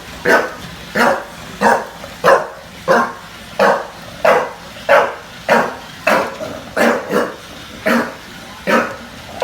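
A bulldog barking over and over at a Roomba robot vacuum, in a steady run of short barks about every two-thirds of a second.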